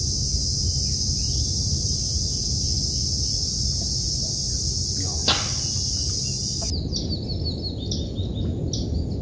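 A steady low rumble under a high, even hiss, with one sharp click a little past halfway. In the last seconds, after the hiss cuts off, birds give short chirps over and over.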